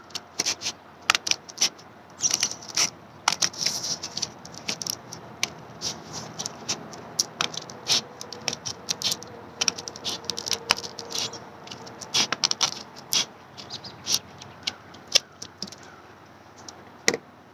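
Scissors cutting through a folded stack of copy paper, with the sheets rustling and crinkling as they are handled; an irregular run of sharp snips and crackles.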